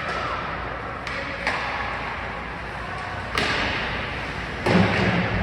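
Ice hockey play in an echoing rink: skates scraping the ice and sticks clacking on the puck, with sharp knocks a couple of times and a heavier thud near the end, like a puck or player hitting the boards.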